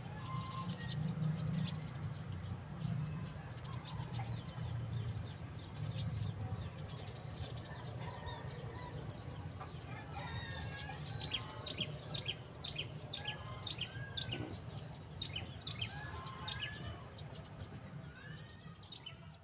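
Birds calling, with scattered arching calls and a quick run of short sharp chirps in the second half, over a steady low hum.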